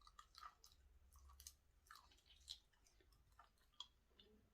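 Faint close-up chewing of fried chicken gizzard, a string of small wet clicks and crunches from the mouth.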